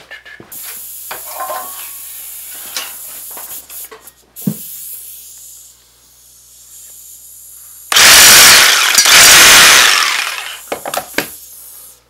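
Cordless drill running very loud in two bursts, about two and a half seconds in all, near the end, with quieter clicks and tool handling on a wooden workbench before it.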